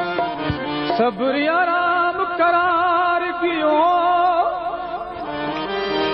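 Sindhi Sufi devotional music: a wavering, ornamented melody line of long held notes over a steady drone.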